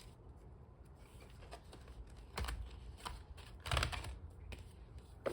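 Paper planner pages being handled and pulled off the discs of a disc-bound Happy Planner: scattered sharp clicks and short paper rustles, loudest a little under four seconds in.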